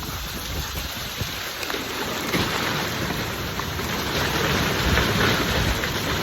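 Hailstorm with nickel- to dime-sized hail and rain pelting down: a dense, steady clatter of many small impacts that grows a little louder about two seconds in.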